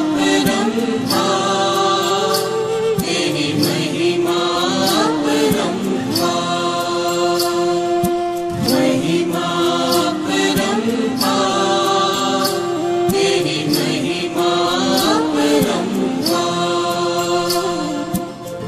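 Music of a Hindi devotional song: a melody over a steady percussion beat, with no sung words.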